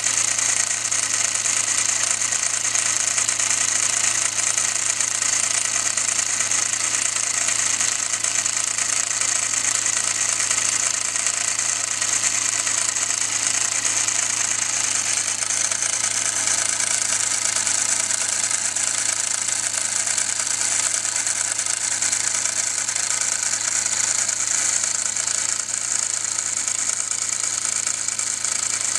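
1937 Hobbies SE2 toy steam engine running fast and evenly: a steady hiss of exhaust steam with a rapid, even chuff from its single brass cylinder.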